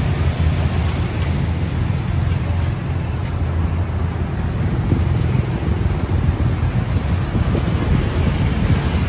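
Steady street traffic noise, a low rumble with no distinct events.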